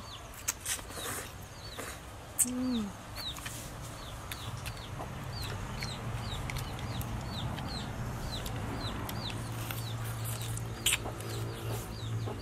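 Chickens clucking and cheeping, with many short, high, falling cheeps repeated throughout and a lower falling call about two and a half seconds in. Noodles are slurped, with a few sharp clicks, and a steady low hum comes in about halfway through.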